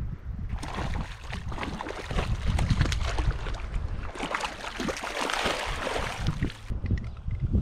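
Water splashing as a hooked trout thrashes at the surface and is netted in a shallow stream, with wind buffeting the microphone. The splashing is heaviest a little after the middle and eases off near the end.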